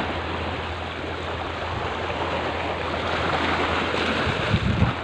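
Small waves of shallow sea water washing and lapping at the shore in a steady wash, with a low steady rumble underneath and a few gusts of wind on the microphone near the end.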